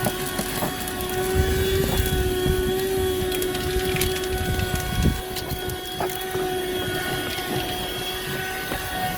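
Buture corded handheld car vacuum running with a steady motor whine, while small rocks and grit click and rattle as they are sucked up the nozzle.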